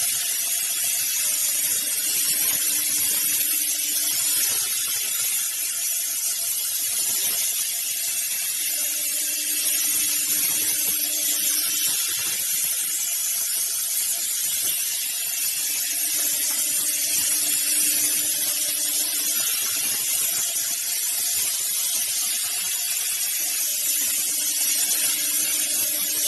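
8-axis CNC plasma cutting machine cutting and beveling a rectangular steel tube: a steady, loud hiss from the plasma torch, with a low hum that comes in and drops out four times, for about three seconds each.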